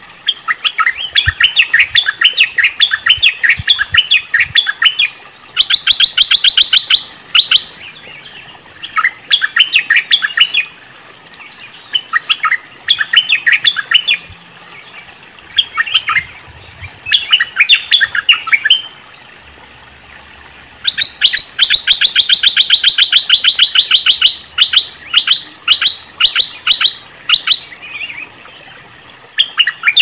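Stripe-throated bulbul (merbah lekir) calling: bursts of rapid, sharp chattering notes in phrases of a second or two, separated by short pauses, with one longer run of about three seconds two-thirds of the way through.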